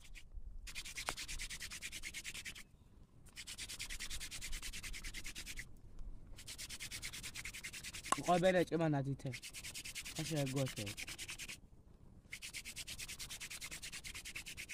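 Hand-drill fire-making: a wooden spindle spun rapidly back and forth between the palms against a wooden hearth board, a fast rhythmic rasping of wood on wood. It comes in runs of a few seconds broken by three short pauses. A man's voice calls out briefly twice a little past the middle.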